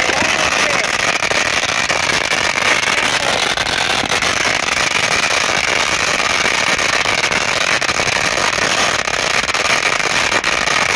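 A 16,000-count roll of Red Apple flash crackers going off: a continuous, rapid string of small bangs that merge into one dense, steady crackle.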